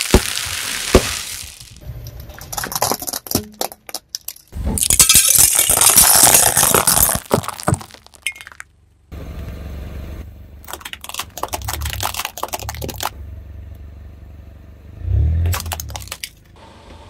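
A car's tyres rolling over and crushing objects: sharp cracks and breaking sounds, a loud hiss lasting a few seconds, then the car's low rumble with more cracking and a heavy thump near the end.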